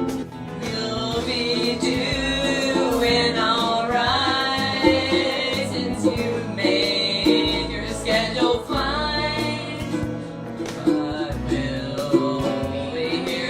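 Guitar-backed country-style music with a wordless sung vocal line gliding over a steady plucked accompaniment.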